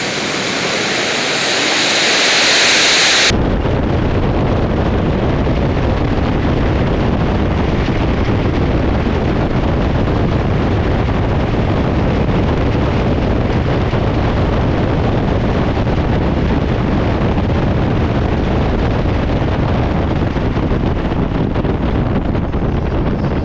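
Three small RC turbine jet engines on a go-kart running on Jet-A, at full throttle for a thrust test. For about three seconds there is a high hiss with a rising whine. Then it changes abruptly to a loud, steady rush of jet noise that holds for the rest of the time.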